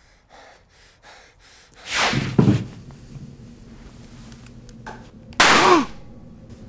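Two loud, sudden hits about three and a half seconds apart, each with a short sweeping tone, over a low steady hum.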